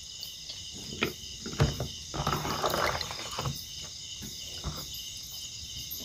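Night insects, crickets among them, chirring in a steady high chorus, with a few light knocks about one and a half seconds in.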